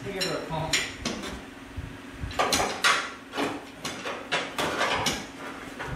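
Metal scraping and clanking in a series of short strokes, most of them in the second half: a pry bar working the Corvette's engine loose as it hangs from a chain hoist.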